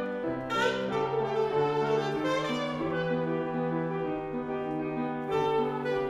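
Saxophone playing a slow melody over sustained keyboard chords, with new phrases entering about half a second in, midway, and near the end.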